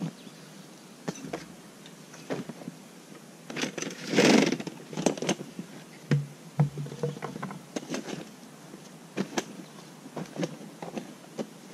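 A plastic dry barrel being opened and rummaged through: scattered clicks and knocks of the lid and of gear being handled, with a louder noisy scrape or rustle lasting about a second, about four seconds in.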